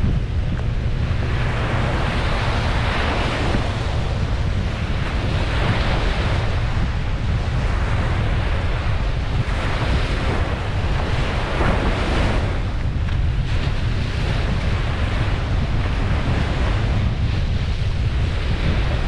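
Ocean waves breaking and washing up a beach, the surf swelling and easing several times, over a steady low rumble of wind on the microphone.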